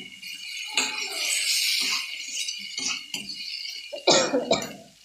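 Spatula scraping and knocking against an iron kadhai as diced potatoes are stir-fried, over a steady frying sizzle. The loudest scrape comes about four seconds in.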